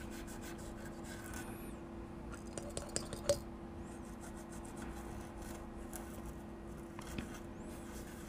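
Faint scrubbing and scratching as a freshly soldered circuit board is cleaned with solvent, with a few small ticks, over a steady low hum.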